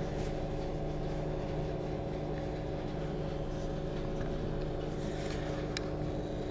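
Inside a Class 455 electric multiple unit moving at low speed: a steady electrical hum with several held tones over a low running rumble, and a single sharp click near the end.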